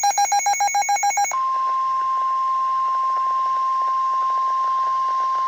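A fast pulsing electronic beep, about nine pulses a second, for just over a second. It then gives way to a steady single tone near 1 kHz: the NOAA Weather Radio 1050 Hz warning alarm tone that comes before a tornado warning is read.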